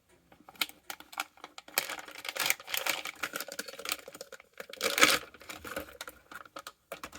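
Product packaging being opened by hand: irregular crinkling, rustling and tearing with scattered small clicks and knocks.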